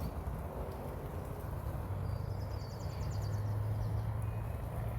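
Outdoor ambience: a steady low noise with a low hum setting in about two seconds in, and a brief rapid high chirping trill, like a bird or insect, around the middle.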